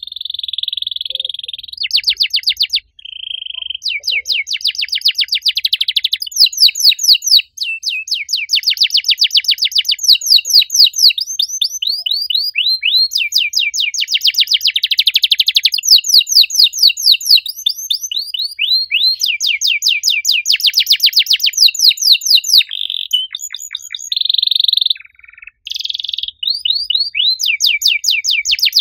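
Domestic canary singing a long, loud, continuous song of fast trills and rolls, rapid repeated sweeping notes broken only by a few brief pauses.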